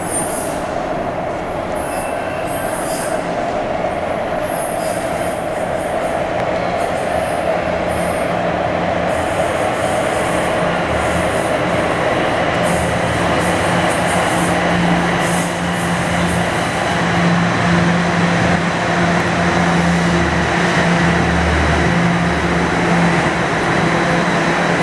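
TTC Toronto Rocket subway train pulling into an underground station platform. A steady rumble runs under on-and-off high-pitched squeals during the first two-thirds, and a steady low hum grows as the train slows alongside the platform.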